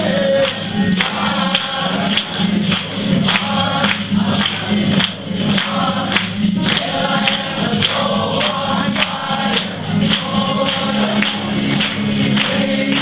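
Gospel worship song sung by a group of voices, with a sharp steady beat about twice a second.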